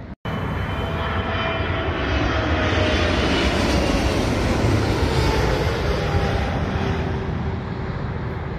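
Turkish Airlines Boeing 777-300 on final approach passing low overhead. Its jet engines make a heavy, steady rush with a whine that falls in pitch as it goes by. The sound is loudest midway and eases a little as the plane moves off toward the runway.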